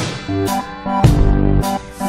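Instrumental backing of a pop song, with no singing: low bass notes under a drum beat, with a hit at the start and another about a second in.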